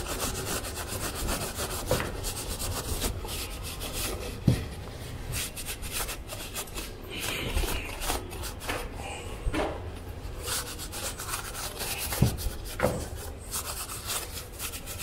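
Irregular rubbing and scraping as a grimy hydraulic brake caliper is wiped and scrubbed clean by hand, with a few sharp knocks of metal parts.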